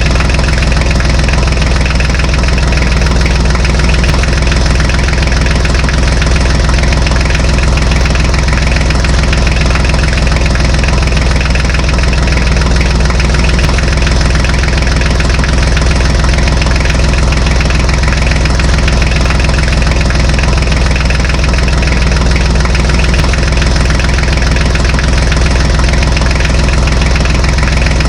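Tractor engine idling steadily, a low, even running sound with no change in speed.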